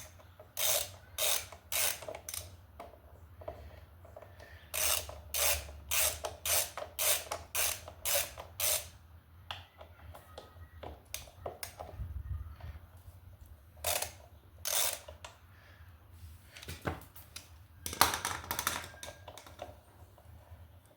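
Hand socket ratchet clicking in short runs of strokes, about two a second, as it loosens the large T45 Torx bolts holding a motorcycle brake caliper.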